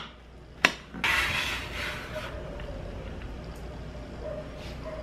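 Large kitchen knife working chopped semisweet chocolate coating on a cutting board: one sharp knock of the blade, then a scraping noise for over a second as the blade slides across the board, followed by quieter handling.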